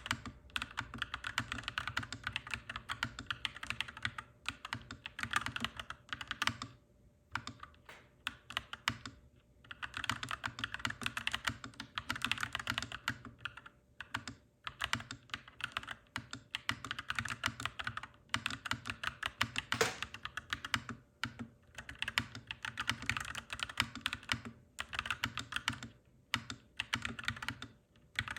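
Clacky mechanical keyboard being typed on, rapid keystrokes in bursts broken by short pauses, over a steady low hum.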